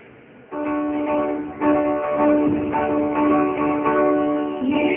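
Live acoustic music starts about half a second in and grows fuller after about a second and a half: strummed acoustic guitars under a sustained melody line of held notes.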